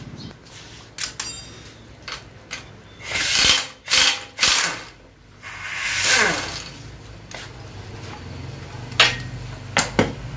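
A ratchet wrench clicking in several short bursts as bolts are loosened on an automatic transmission being dismantled, followed by a few sharp metal clinks near the end.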